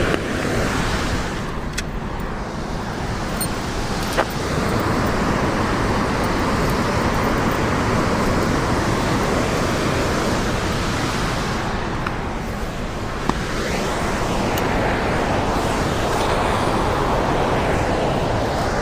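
Steady rushing of water released from a dam into the churning tailwater below it, an even, loud noise with a few light clicks over it.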